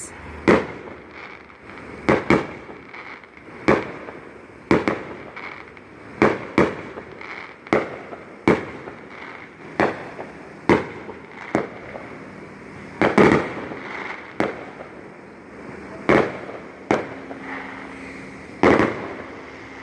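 Fireworks going off one after another, a sharp bang roughly every second, each trailing off in a short echo, with the loudest pair of bangs about two-thirds of the way through.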